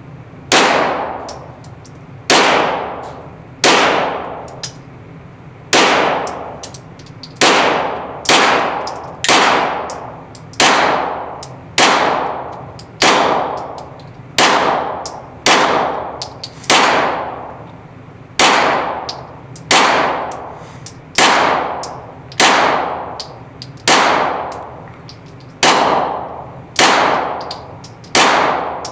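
Beretta CX4 Storm 9mm semi-automatic carbine fired shot by shot at a steady, unhurried pace, about twenty-two shots roughly a second or so apart. Each sharp report rings on in the echo of the indoor range.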